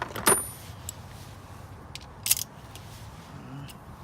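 Hand tools on the brake caliper bolts: a sharp metallic clink with a brief ringing tail about a third of a second in, then a short ratcheting rasp a couple of seconds later as a socket wrench is worked to tighten the bolts.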